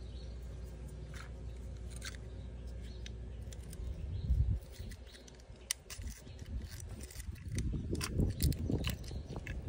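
Pliers clicking and crunching against a corroded cable clamp, breaking off white corrosion powder, with a run of sharp metal clicks and scraping in the second half.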